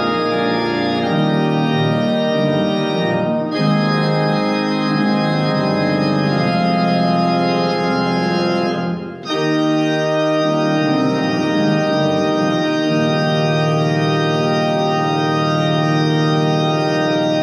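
Organ music: sustained chords held and changing slowly, with a brief dip in level about nine seconds in.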